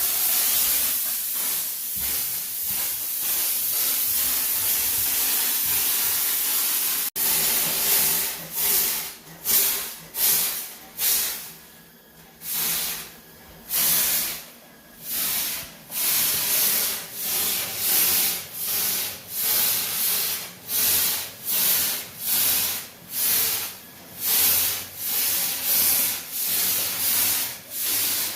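Disinfectant sprayer hissing: a steady spray at first, then after a sudden break, short bursts of spray about once a second.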